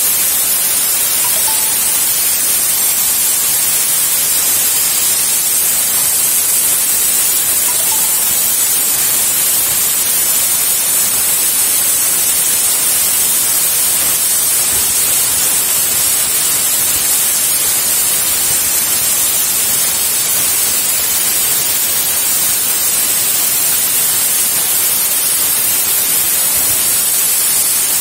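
CNC plasma cutter's torch arc cutting steel plate: a loud, steady, high-pitched hiss.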